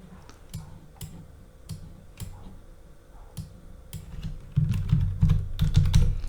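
Typing on a computer keyboard: irregular keystrokes, quicker and louder from about four and a half seconds in.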